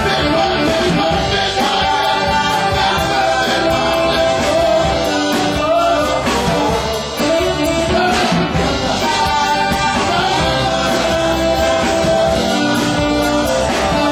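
Live rock band playing loudly: electric guitars through amplifiers and a keyboard, with a voice singing over them.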